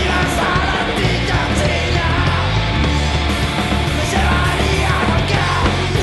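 Live grunge band playing loud: distorted electric guitars and electric bass over a drum kit, with cymbal crashes a few times.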